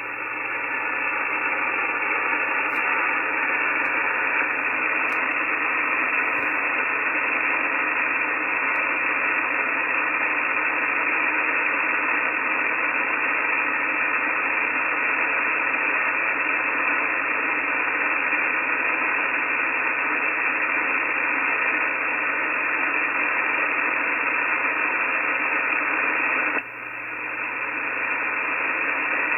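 Shortwave SSB receiver hiss on the 17-metre amateur band: a steady rushing noise through the radio's narrow voice filter, with no station heard. Near the end the hiss drops suddenly and swells back over a couple of seconds as the receiver's automatic gain control recovers.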